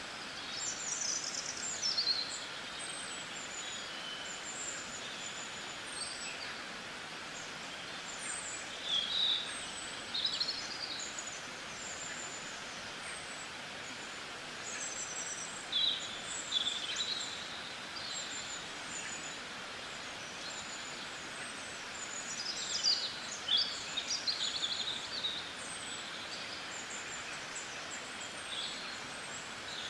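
Small birds chirping and twittering in short flurries every few seconds, over a steady hiss.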